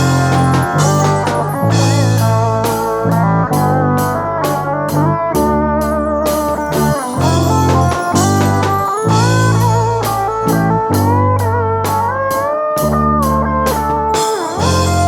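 Instrumental break of a rock song: a lead guitar solo with bending, sliding notes over a bass line and drums.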